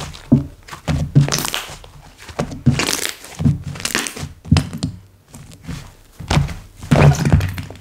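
Hands pressing and folding slime, giving irregular squishy presses with crackling clicks and soft thuds. There is a short lull about two thirds of the way through.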